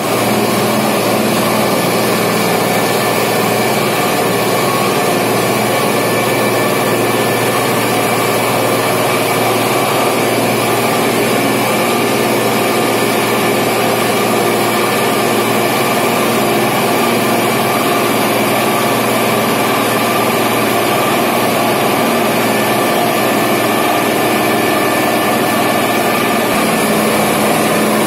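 Double-stage centrifugal millet dehuller running steadily, its electric motors, belt drives and aspirator fan making an even mechanical drone with several steady tones in it.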